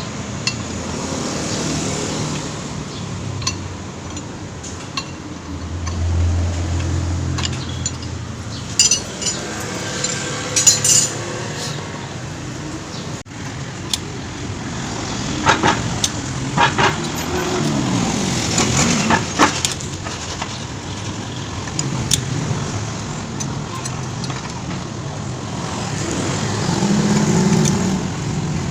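Scattered metallic clinks of tools and scooter engine parts being handled, in groups, over a steady background of passing vehicles.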